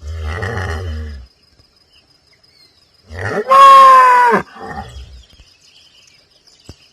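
Cow mooing: a low, rumbling moo lasting about a second, then about three seconds in a much louder, higher-pitched bellow of about a second that sags in pitch at its end and trails off.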